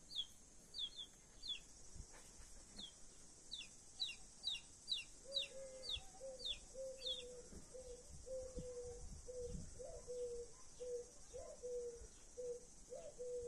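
Australorp chicks peeping, a quick run of high, falling peeps about two a second through the first half. From about five seconds in, the mother hen's low, even clucks join in, about two a second.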